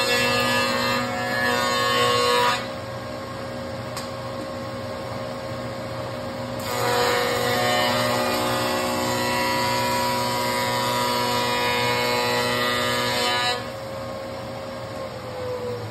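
Oliver 4705 5 hp spindle shaper running at 7,000 RPM with a Freud raised-panel bit, cutting the edges of a red oak panel. There are two loud cutting passes, a short one at the start and a longer one of about seven seconds through the middle, over the steady whine of the running spindle and dust collector. Near the end the steady note starts to fall in pitch.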